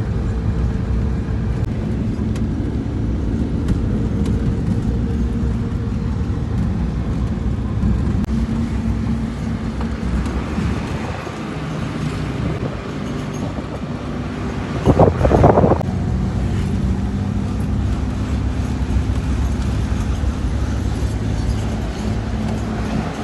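Vehicle engine running steadily under way, heard from inside the vehicle as a constant low hum. About fifteen seconds in, a louder pitched blare lasts about a second.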